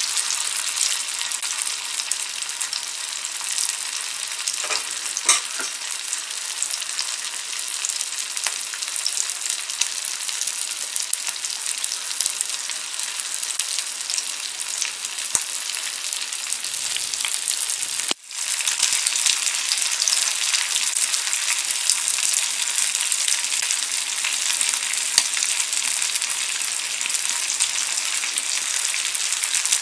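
Vanjaram (seer fish) slices shallow-frying in oil on a dosa tawa: a steady sizzle with fine crackling and spitting. The sound drops out for a split second a little past the middle.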